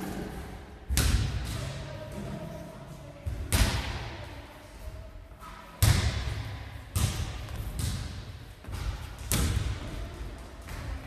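A basketball bouncing on a wooden hall floor, one bounce every second or two, each bounce echoing around the hall.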